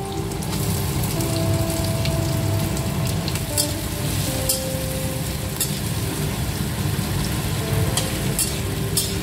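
Sliced onions frying in hot oil in a metal kadai, a steady sizzle, while a metal spatula stirs them, scraping the pan with a few sharp clinks in the second half.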